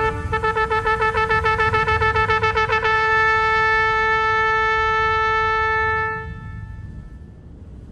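A shofar (ram's horn) blown in quick pulses, several a second, for about three seconds, then held as one long steady blast that stops about six seconds in, over a low rumble.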